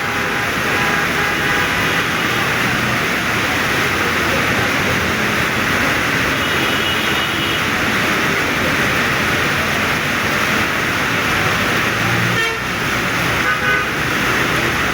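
Heavy, steady rain mixed with road traffic noise, with occasional short horn toots.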